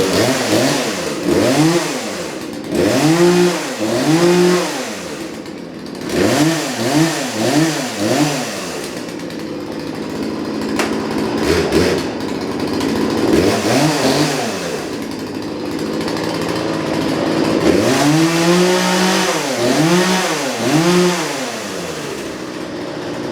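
Craftsman 42cc two-stroke chainsaw running, its throttle blipped again and again so the engine rises to a high whine and falls back, in quick clusters of two to four revs. Between the clusters it settles to a steady idle, longest in the middle.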